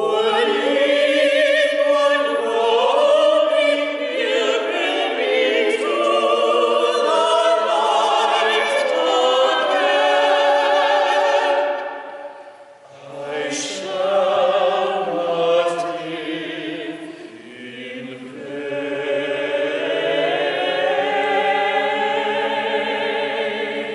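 Mixed vocal quartet of soprano, contralto, tenor and bass singing an anthem in four-part harmony with vibrato. The voices break briefly about twelve seconds in, then resume with the bass line clearer, and end on a long held chord.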